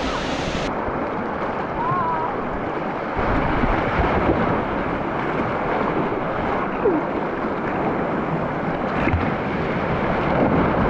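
Steady rush of creek water pouring down the natural rock chute of Oak Creek at Slide Rock, growing a little louder about three seconds in.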